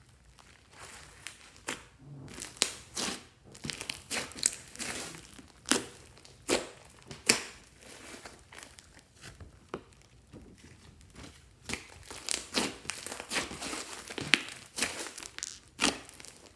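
Slime being mixed and squished, with irregular sticky crackles and sharp pops.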